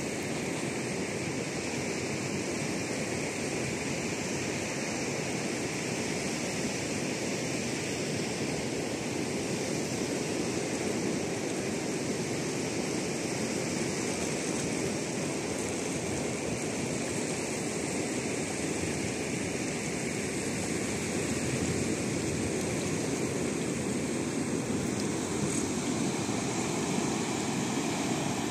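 Sea surf washing onto a sandy beach, an even noise that grows slightly louder near the end.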